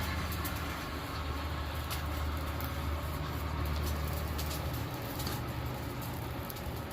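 Coal forge air blower running with a steady low hum under a hiss of air, dropping away about five seconds in.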